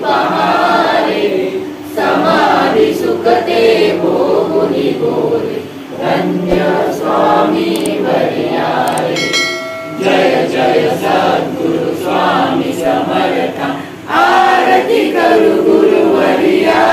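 A group of devotees singing a Marathi bhupali aarti together, in phrases with short breaks between them. A brief ringing tone sounds about nine seconds in.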